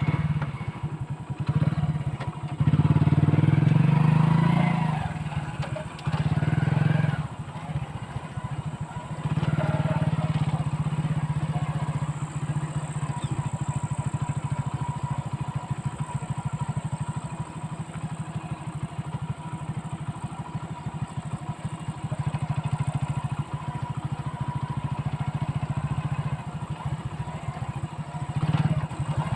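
A vehicle engine running with a steady low hum. It revs up and back down about three to five seconds in, then settles into a steady run.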